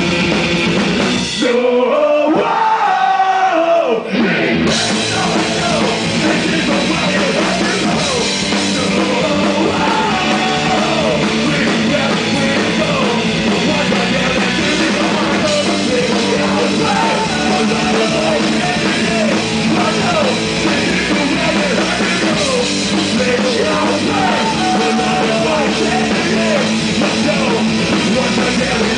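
Live punk rock band playing loud: electric guitars, bass and drum kit under a yelled lead vocal. About a second and a half in, the band cuts out for about three seconds and leaves a lone voice, then the full band comes crashing back in.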